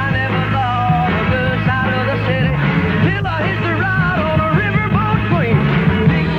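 Band music with sung vocals: a singing voice wavers over steady bass and backing instruments.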